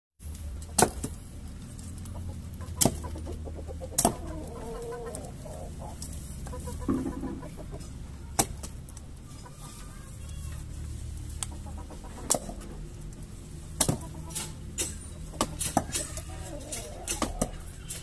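Small axe chopping wood: a dozen or so sharp, irregular strikes, the loudest in the first few seconds and coming faster near the end. A bird clucks a few times in between.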